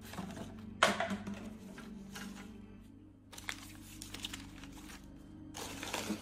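A low, steady music drone, with paper being crumpled and rustled by hand over it in bursts: a sharp crinkle about a second in, more rustling in the middle and again near the end.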